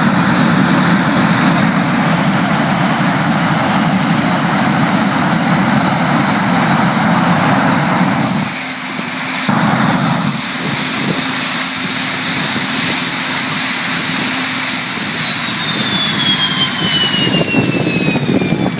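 Jet engine of a jet-powered classic Mini running flat out, a loud rush with a steady high whine over it. About three-quarters of the way through, the whine starts to fall in pitch as the engine spools down.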